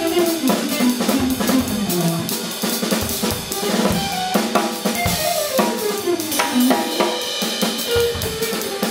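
A live drum kit played with a band: kick and snare hits with cymbals, over melodic lines that slide up and down in pitch.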